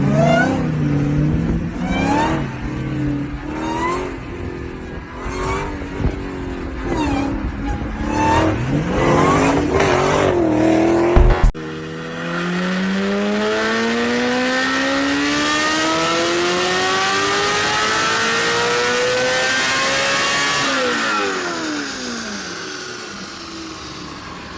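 V8 car engine being revved in a series of quick throttle blips. After a cut, a V8 accelerates hard in one long pull, its pitch climbing steadily for about nine seconds. It then drops in pitch as the throttle lifts and fades away.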